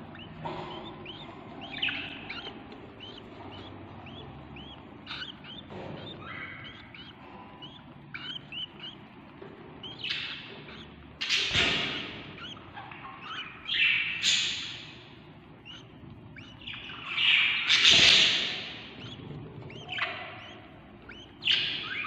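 Budgerigar chicks chirping: many short chirps at first, then louder raspy begging calls in bouts, the loudest one late on, the sound of hungry chicks calling for food.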